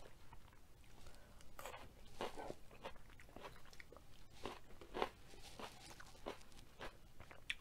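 Close-miked crunching and chewing of crisp food: irregular crunches every half second or so, the sharpest about five seconds in.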